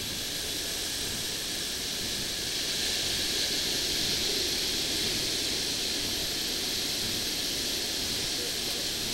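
Steady hiss of ocean surf and wind on the beach, even throughout.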